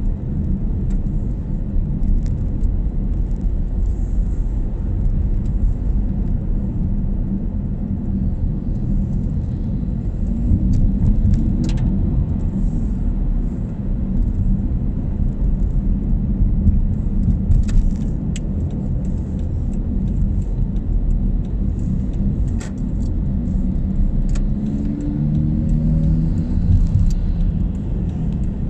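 Car engine and tyre noise heard from inside the cabin while driving, a steady low rumble. The engine note rises about ten seconds in and again near the end as the car accelerates, with a few light clicks along the way.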